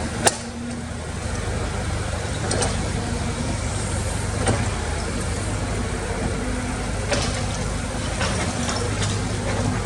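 Heavy machinery diesel engine running steadily, with scattered sharp knocks, the loudest just after the start.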